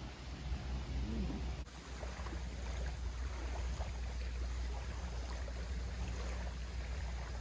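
Wind rumbling on the microphone, with small lake waves lapping faintly at a sandy shore.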